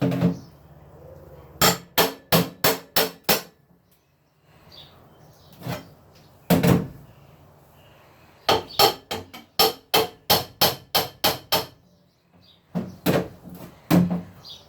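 Hammer blows in quick runs of several strikes, about three to four a second, with short pauses between the runs.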